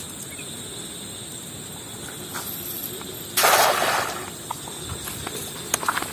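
Riverside ambience with a steady, high-pitched insect drone. About three seconds in it is broken by a short, loud rush of noise lasting under a second, and a few sharp clicks follow near the end.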